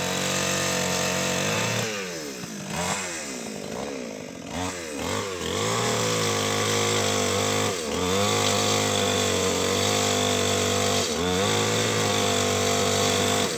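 Two-stroke chainsaw engine running steadily. Its speed sags and wavers for a few seconds starting about two seconds in, then picks back up. It dips briefly twice more later on.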